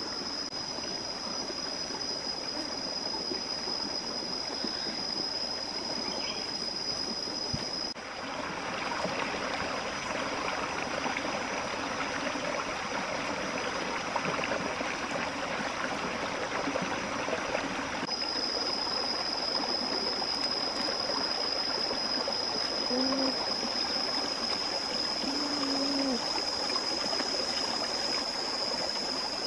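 Running stream: a steady rushing of water with a steady high-pitched whine over it. The whine stops for about ten seconds in the middle, while the water sounds louder.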